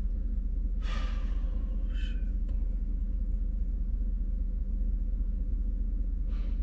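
Steady low drone of an idling vehicle engine heard inside the cab, with a breathy exhale about a second in, another just after, and a fainter one near the end.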